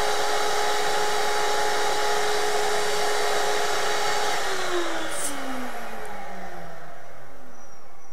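Vacuum drawing helium out of a plastic bag, running with a steady rushing whine, then switched off about four and a half seconds in, its motor winding down in a falling whine.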